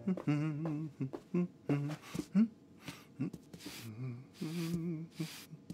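A man humming a tune in short notes, with a cat's fur being brushed: several quick brush swishes in the second half.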